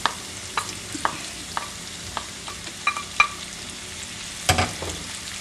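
Chopped onion sizzling in hot oil with rendered guanciale in a nonstick frying pan. A wooden spoon taps and scrapes with sharp clicks every half second or so, with one louder knock about four and a half seconds in.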